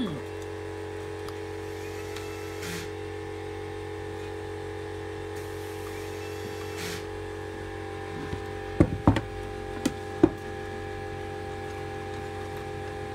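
Steady electrical hum, with a handful of sharp clicks and knocks about nine to ten seconds in from small parts being handled.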